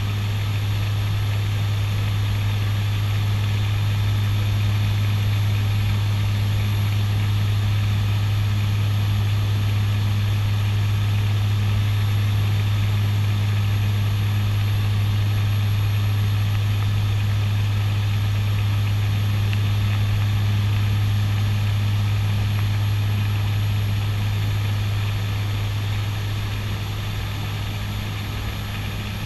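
Twin Garrett TPE331 turboprops of a CASA NC-212-200 Aviocar in level flight, heard inside the cockpit as a steady, deep propeller drone with engine hiss above it.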